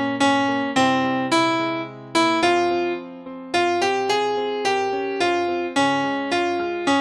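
Piano-like keyboard instrument playing a moderate melody over chords, about two notes a second, each note striking sharply and then fading.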